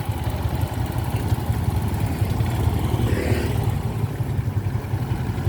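An engine running steadily, with a low, fast-pulsing hum and no clear change in speed.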